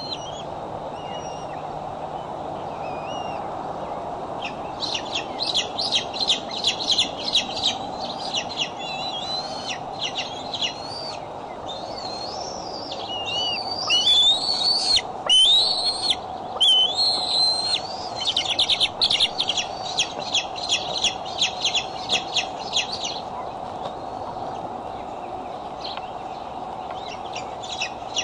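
Bald eagles calling at the nest: runs of rapid, high chittering pips, then squealing, wavering whistles around the middle, then more rapid chittering, over a steady low hum.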